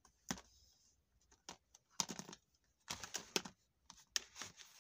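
Faint, irregular clicks and light taps of plastic makeup items being handled, such as a lipstick tube and a compact, with small clusters of clicks about two and three seconds in.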